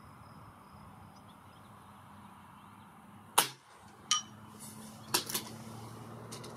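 A single shot from a Reximex Throne Gen-2 .177 PCP air rifle, a sharp crack about halfway through. About three quarters of a second later comes a fainter click with a ringing tone, then two quick clicks close together a second after that.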